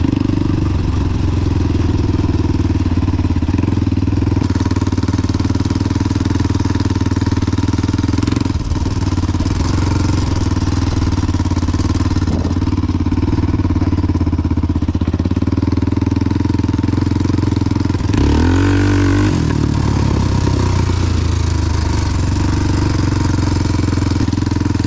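Big-bored Honda 400EX quad's single-cylinder four-stroke engine running steadily under way, with a brief rise and fall in revs about three-quarters of the way through.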